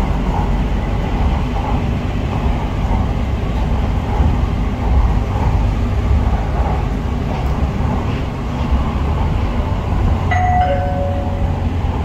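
MRT Putrajaya Line train running, a steady rumble and rail noise heard from inside the car. About ten seconds in, a two-note falling chime sounds, the signal for an onboard station announcement.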